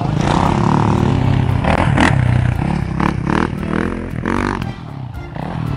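Dirt bike engine revving as the rider accelerates around a dirt track, the revs surging several times.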